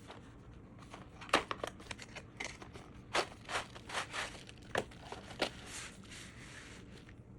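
Short sharp clicks, scrapes and crinkling as objects are handled on a work surface, with a brief soft hiss near the end.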